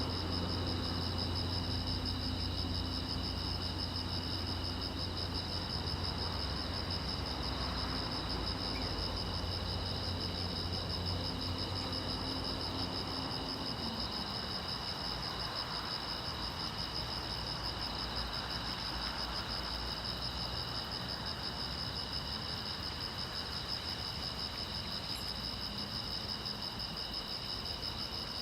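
Crickets chirping in a continuous high-pitched trill. Under them a low hum holds steady, then drops in pitch and fades out about halfway through.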